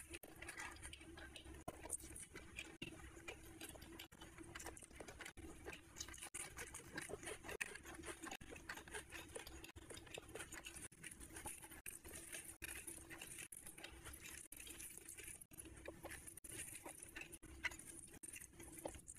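Faint, close-miked eating sounds: chewing and wet mouth smacks, and fingers squishing and mixing rice and curry on a plate, heard as many small soft clicks and crackles over a faint steady hum.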